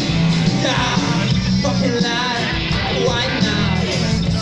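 A punk rock band playing live: electric guitars, bass and drums with a singer's voice over them.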